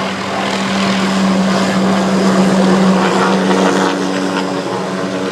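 Utility helicopter flying close by: a loud, steady rotor and turbine drone with a constant hum. A second, higher tone joins about three and a half seconds in, as the helicopter manoeuvres.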